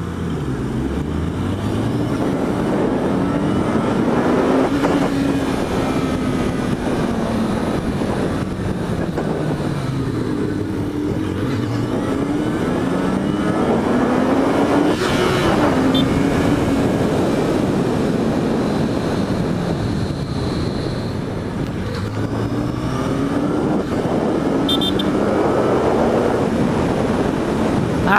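Yamaha XJ6 inline-four motorcycle engine under way, its pitch climbing and dropping several times as the bike speeds up and slows, with wind rushing over the helmet-mounted microphone.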